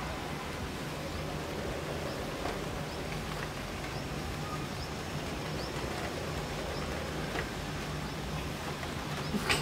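Steady hiss of light rain falling outdoors, with a faint low hum underneath.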